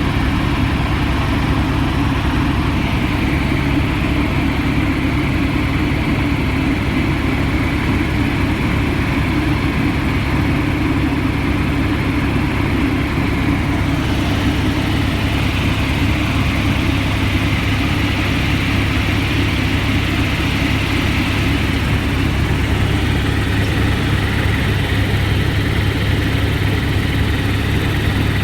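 Helicopter in flight heard from inside the cabin: a loud, steady drone of engine and rotor that holds unchanged throughout.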